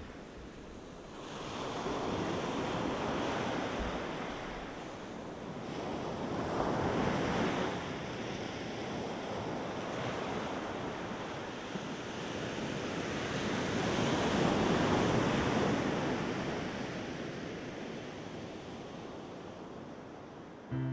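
Sea waves breaking and washing onto the shore, rising and falling in slow surges.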